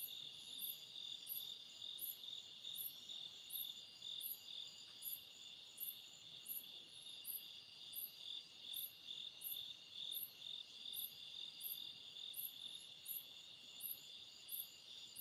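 Night insects calling: a steady high trill with a sharper, very high chirp repeating about one and a half times a second.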